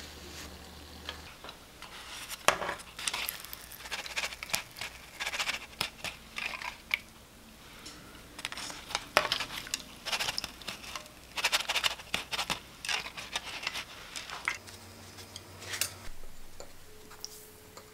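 Doughnuts frying in a pan of hot oil, crackling and popping irregularly, with light clicks of wooden chopsticks handling them.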